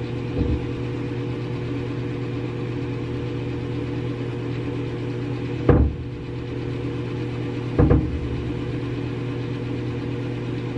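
A steady low machine hum, as from a running motor or appliance, broken by three short thumps: a small one about half a second in, then two louder ones near the middle and about eight seconds in.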